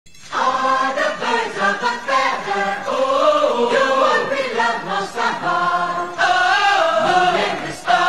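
Music with a group of voices singing wordless, chant-like vocal lines, starting just after the beginning.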